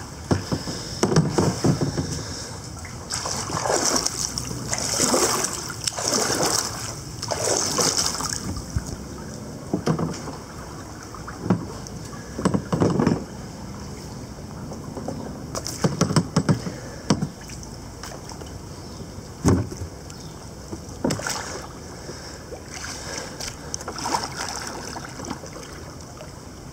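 Kayak paddle strokes dipping and splashing in the water, a stroke every second or two, with the splashing heaviest in the first eight seconds and a few sharp knocks later on.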